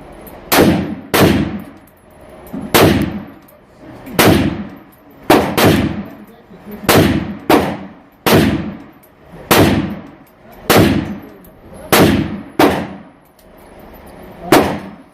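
Short-barrelled 7.62x39 AR-15 rifle fired in semi-automatic, a string of about fourteen shots roughly a second apart, some in quick pairs, each with a ringing echo trailing off.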